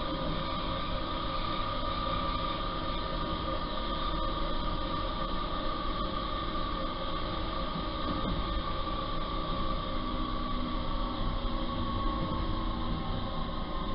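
Steady running noise of a moving train heard from inside the carriage, with a steady whine that sinks slightly in pitch near the end and a couple of faint clicks.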